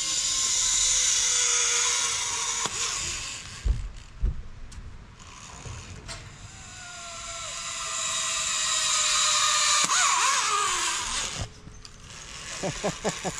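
Zip-line trolley pulleys running along the steel cable: a whirring hiss with a faint falling whine that swells and fades, twice.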